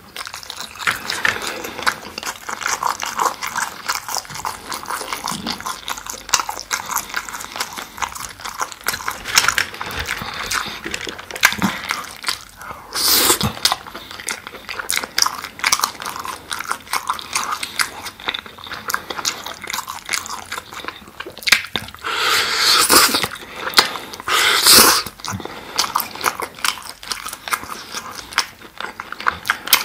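Close-miked chewing of sauce-glazed grilled chicken skewer meat: a steady run of wet smacking and squelching mouth sounds, with a few louder bursts about halfway through and twice around three-quarters of the way in.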